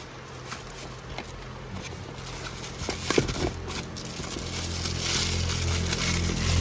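Scattered light clicks and handling noises, then a low steady motor-vehicle hum that builds from about four and a half seconds in.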